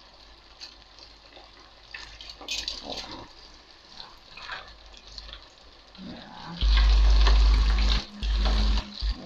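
Chicken frying in hot oil in an electric deep fryer: a faint, steady sizzle and bubbling with a few clicks of metal tongs, then about six and a half seconds in it turns loud, with a low rumble under it, twice in a row as raw pieces go into the oil.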